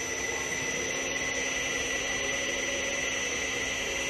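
Laboratory Z-blade (sigma-blade) mixer running, its electric motor and reducer turning the twin sigma blades in reverse: a steady whine over a hum.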